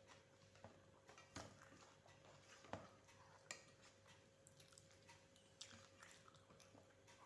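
Faint chewing and eating: soft irregular mouth clicks and smacks, some half a second or more apart, from eating rice with mashed boiled dal, potato, pumpkin and egg. A faint steady hum lies underneath.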